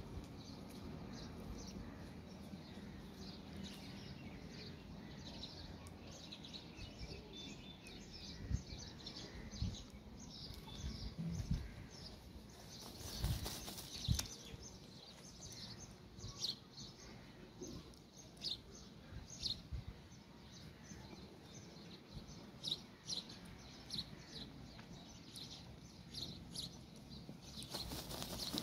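A rooster dust-bathing in dry soil, making soft scuffles and feather-shaking rustles, with a few low thumps from about eight to fourteen seconds in. Small birds chirp in short high notes throughout.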